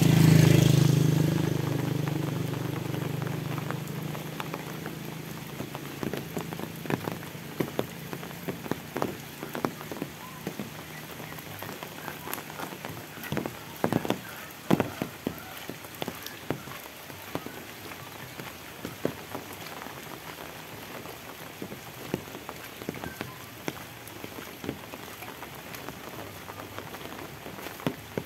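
Steady rain with many separate heavy drops ticking close by. At the start a passing motorbike's engine hum is the loudest sound, fading away over the first few seconds.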